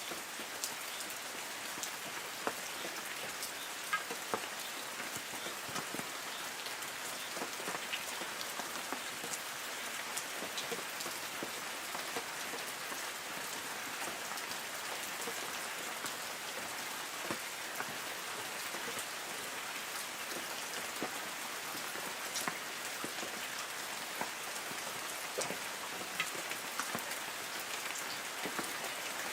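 Light rain falling on forest trees: a steady, even hiss of rain with many separate drops pattering and ticking on leaves.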